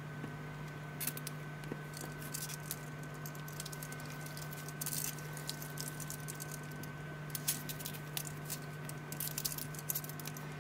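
Faint rustling and small clicks of a leather watch strap being handled and buckled on a wrist, in a few short clusters over a steady low hum and a faint high whine.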